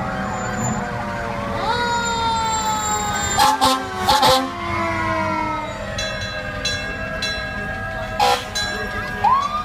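Several fire engine sirens wailing together, their pitches overlapping and sliding slowly downward, with one winding back up near the end. Three short loud blasts cut through, two close together about three and a half seconds in and another about eight seconds in.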